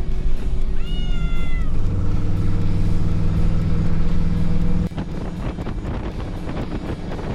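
A cat meows once, a drawn-out call that rises and then falls, about a second in, over a steady low hum. Near 5 s the hum stops abruptly and wind noise on the microphone takes over.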